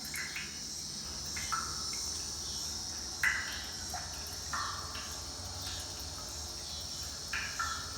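Steady high-pitched chorus of insects, with short, louder chirps every second or two.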